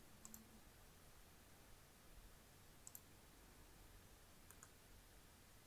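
Near silence with a few faint, short clicks: one near the start, one about three seconds in and a pair about four and a half seconds in.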